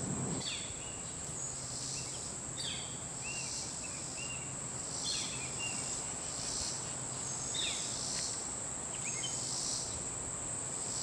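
Steady high-pitched insect chorus of crickets or katydids, with a short falling chirp repeated about every two and a half seconds.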